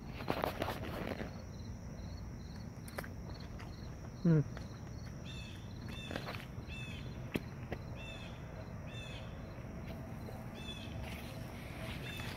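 Late-summer insects calling: a steady high-pitched drone, with a short repeated chirp about twice a second through the second half. A brief hummed sound from a man's voice about four seconds in, and some rustling at the start.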